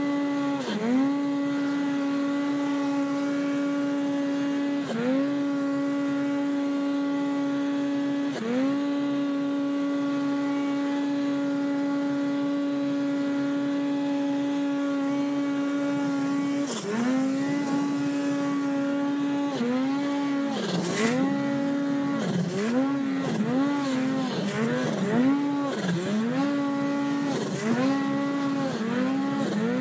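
Polaris 800 two-stroke snowmobile engine run at high steady revs on a steep climb, briefly dipping and recovering three times. From just over halfway on, the throttle is blipped again and again, the revs dropping and climbing about once a second.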